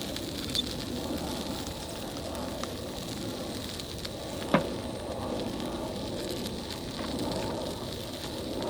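Grilled cheese sandwich frying in a pan over a camp stove burner, a steady sizzle with the flame running underneath. It is starting to burn. A single sharp click sounds about four and a half seconds in.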